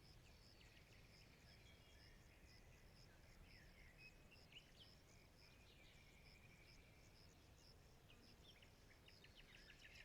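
Faint forest ambience: birds calling with short gliding chirps, with a quick run of calls near the end, over an insect chirping evenly a few times a second.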